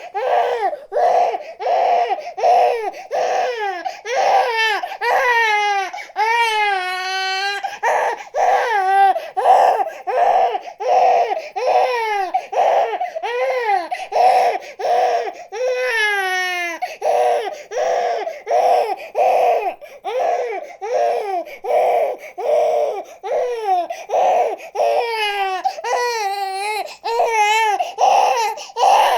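Baby crying without let-up: short cries about two a second, broken several times by longer wails that waver up and down in pitch.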